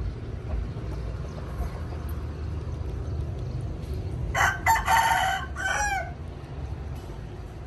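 A rooster crowing once, about four seconds in, over a steady low background rumble.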